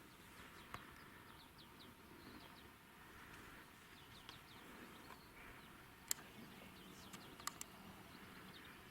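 Near silence with faint, scattered bird chirps and a few sharp clicks, the loudest about six seconds in.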